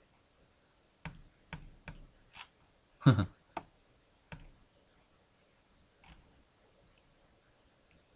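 Scattered computer mouse and keyboard clicks, about ten separate sharp clicks, closest together in the first half, with one louder, deeper thump about three seconds in.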